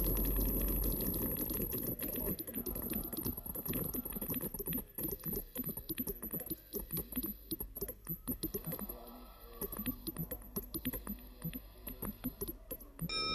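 Dense, irregular patter of small clicks and taps, thinning out and falling quieter about two-thirds of the way through before picking up again.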